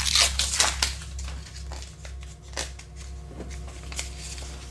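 Rustling and crinkling of wrapping as hands unwrap a small packed part, with scattered light clicks and taps. The rustling is densest in the first second and then thins out, over a steady low hum.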